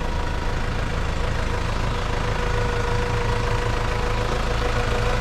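Farm tractor engine running steadily at low speed, with a steady whine over it.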